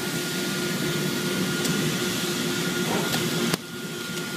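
Preco CNC laser cutting machine running: a steady hiss with a hum of two held tones. About three and a half seconds in, a click, and the noise abruptly drops to a lower level.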